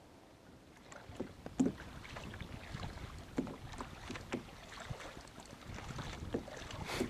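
Double-bladed kayak paddle dipping and splashing in the water in an irregular run of strokes, starting about a second in, with wind rumbling on the microphone.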